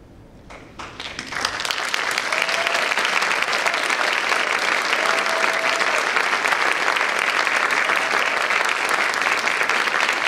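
Audience applauding: a few scattered claps about half a second in, swelling within a second into full, steady applause.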